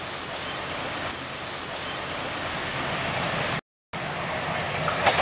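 Insects buzzing and chirping steadily in grassland: a continuous high buzz with a rapid pulsing chirp beneath it, over a steady low background noise. The sound cuts out completely for a moment about three and a half seconds in.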